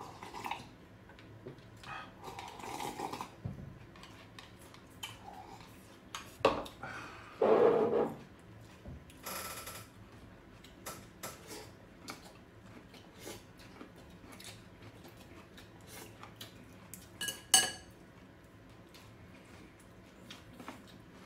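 Chopsticks and tableware clicking and tapping against ceramic bowls and plates during a meal, in scattered light knocks. A brief muffled noise about seven seconds in, and one sharper, ringing clink of ceramic near the end.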